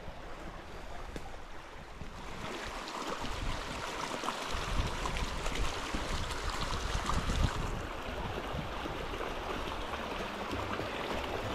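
Shallow rocky brook running: a steady rush of water over stones that grows louder about two seconds in and eases a little near the end.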